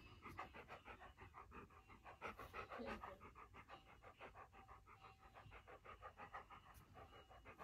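Yellow Labrador retriever panting softly with mouth open, a quick, even run of short breaths.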